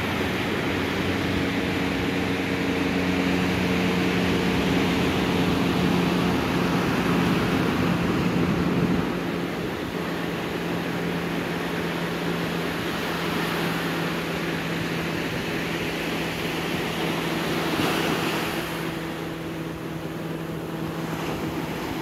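Small waves washing in and out over a sandy beach, with a steady low hum underneath that drops slightly in pitch about nine seconds in.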